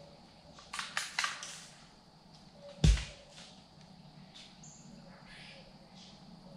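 A single gunshot about three seconds in: one sharp, loud report with a short fading tail, from a hunter's long gun fired up into the trees at a squirrel. A few short, high-pitched sounds come about a second before it.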